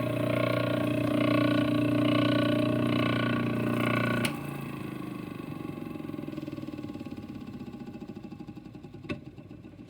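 InSinkErator garbage disposal motor running with a steady hum, switched off about four seconds in and then winding down as it fades away. A single sharp click near the end.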